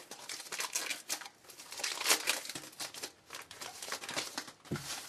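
Foil wrapper of a Contenders basketball trading-card pack crinkling as it is pulled from the box and handled, a dense irregular crackle, with a dull thump near the end.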